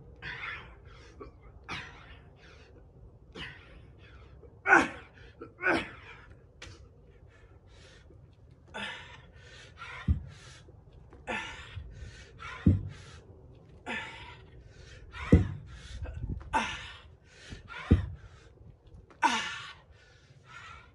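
A man breathing hard under exertion through push-ups and dumbbell clean and presses: loud, forceful, panting exhales every second or so. In the second half there are four dull thumps about two and a half seconds apart.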